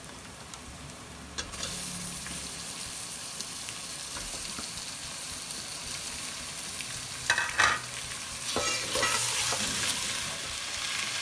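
Raw chicken pieces sizzling as they go into hot oil with fried onions and ginger-garlic paste, the sizzle starting about one and a half seconds in and growing louder near the end. A slotted metal spatula stirs them, scraping and knocking against the metal pot a few times.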